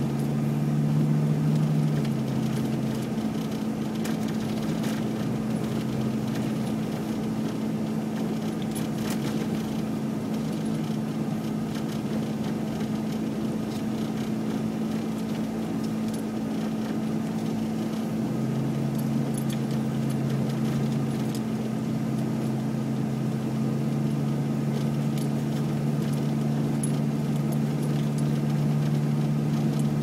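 Steady hum of a car heard from inside the cabin while driving on a snowy road, with a lower drone that fades out a few seconds in and returns, rising slightly, in the second half.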